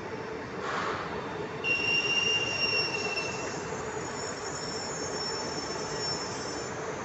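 Italo high-speed train moving slowly along the platform, its running gear squealing: a high-pitched squeal for about a second and a half, and a higher one lasting about five seconds, over a steady hum. A short hiss comes about half a second in.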